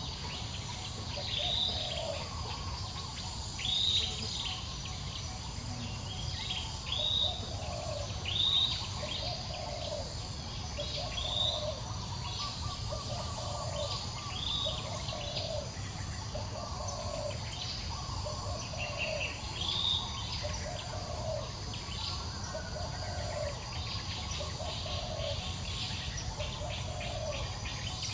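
Outdoor ambience of birds calling: scattered sharp chirps over a lower note that repeats steadily a little more than once a second, with a steady low hum underneath.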